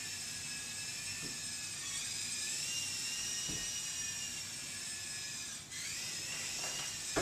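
Small radio-controlled toy helicopter's electric motor and rotor whining steadily, the pitch drifting up and down with the throttle; near the end it briefly dips and then picks up again.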